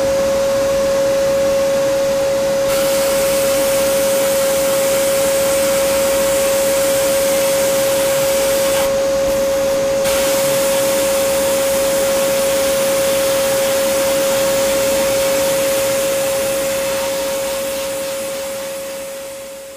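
Sandblast cabinet in use, blasting paint off a painted rock: the loud hiss of the blast gun over a steady motor whine. The blast drops out briefly about nine seconds in, and the sound fades out near the end.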